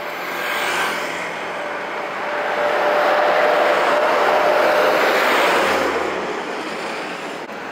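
A vehicle passing: a rushing noise with a steady whine swells up, is loudest in the middle, and fades away after about six seconds.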